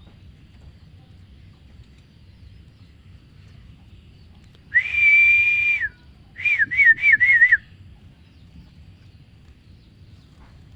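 Ciblek semi (a prinia) giving one clear steady whistled note about a second long, then a quick run of about five wavering whistled notes.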